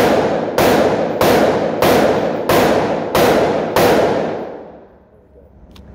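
A string of seven gunshots about two-thirds of a second apart, each ringing out in a long echo, ending a little under four seconds in.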